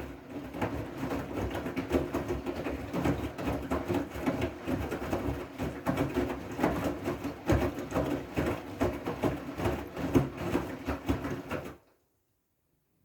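Siemens i-Dos washing machine running its wool/delicate programme: the drum motor turning with a steady hum and a rough, uneven churn, cutting off suddenly near the end.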